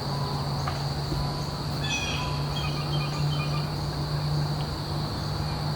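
Outdoor ambience: a few short bird chirps about two seconds in, over a steady low hum and a steady high-pitched whine.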